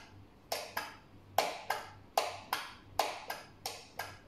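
Rocker switch on an LED bulb test box clicked repeatedly, about five pairs of sharp clicks a little under a second apart. The bulb is being flicked on and off several times in a row, a switching test of the LED lamp.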